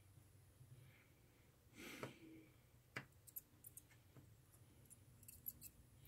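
Near silence: room tone with a few faint, light clicks, the sharpest about three seconds in and a small cluster near the end.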